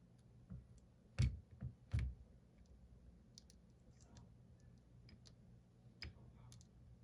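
Small sharp clicks as the new display's top and bottom flex cable connectors are pressed onto an iPhone 14 Pro Max's logic board, three louder ones close together about a second in and another near the end.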